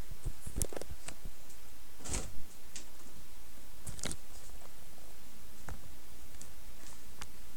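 Handling noise from a camera being picked up and carried: scattered clicks and knocks, the loudest a thump about two seconds in, over a steady low hum.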